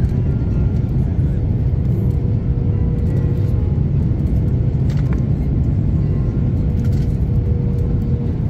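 Cabin noise inside an Airbus A330-200 coming in low over the runway to land: a loud, steady low rumble of engines and airflow, with a faint steady hum above it.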